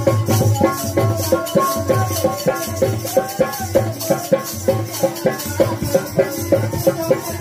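Live devotional bhajan music: a harmonium holding tones over a hand drum and rattling hand percussion, keeping a steady beat.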